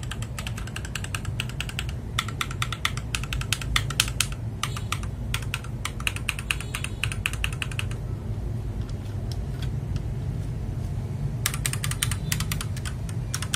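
Rapid typing on a mechanical keyboard with Akko switches, a quick run of key clicks that stops for about three seconds past the middle and then resumes near the end. A steady low hum sits underneath.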